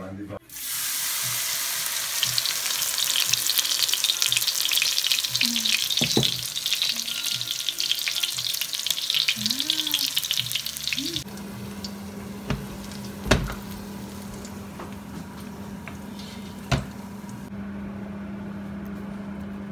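Batter-coated elderflower head deep-frying in hot oil in a wok: a dense crackling sizzle. About eleven seconds in the sizzle stops, leaving a quieter steady low hum with a few sharp knocks, the loudest about a second and a half later.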